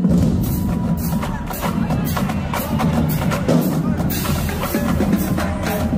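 College marching band drumline playing a loud, continuous percussion cadence: snare drums and multi-tenor drums struck in fast rhythm, with bass drums and cymbal crashes.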